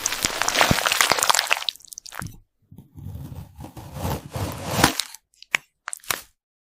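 Crisp crunching and crackling of something brittle being crushed: a dense crackle lasting about two seconds, a longer, fuller one, then three short separate snaps near the end.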